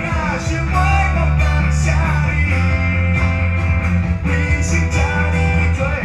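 Small band playing live: electric bass guitar holding low notes under a strummed acoustic guitar.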